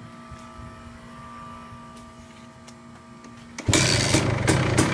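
A faint steady hum, then about three and a half seconds in a 2013 KTM 250 two-stroke dirt bike engine starts up suddenly and loudly and runs on with rapid popping.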